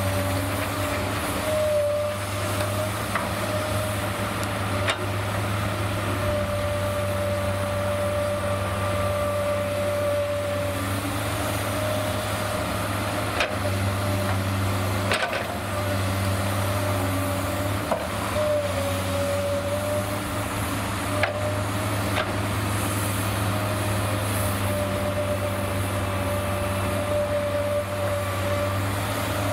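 Komatsu PC210LC-8 crawler excavator working: a steady diesel engine drone, with a hydraulic whine that dips and rises in pitch as the boom and bucket move. A few sharp knocks come as bucket loads of soil and stones drop into the steel body of a Kamaz dump truck.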